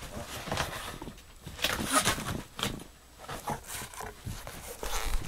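Large corrugated cardboard shipping box being worked open with scissors: irregular scraping, crinkling and knocking of cardboard flaps and tape, loudest about two seconds in.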